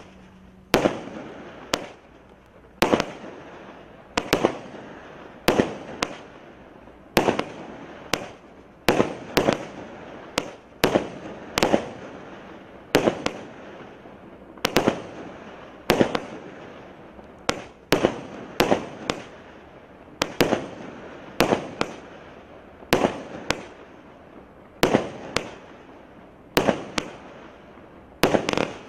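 A 25-shot consumer firework cake with 22 mm tubes firing shot after shot, about one a second and at slightly uneven spacing. Each shot is a sharp report followed by a short hiss that fades as the brocade burst burns out.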